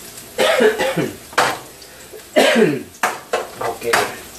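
A man coughs twice, about half a second and two and a half seconds in, then a metal utensil clicks and scrapes against a frying pan several times near the end.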